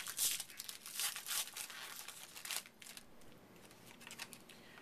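Crinkling and rustling of a trading-card pack wrapper and cards being handled, in quick bursts for the first two and a half seconds, then fainter.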